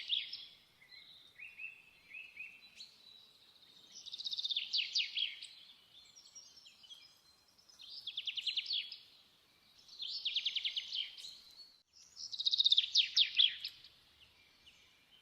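A songbird singing in short repeated phrases of rapid, high, falling trilled notes, one phrase every two to three seconds.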